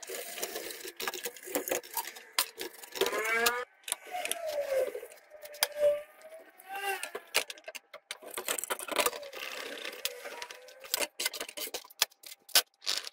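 Many sharp clicks and knocks from handling the plastic and metal parts of a computer motherboard. Several drawn-out pitched calls rise and fall behind them, one rising about three seconds in, one falling soon after, and a long faint one later.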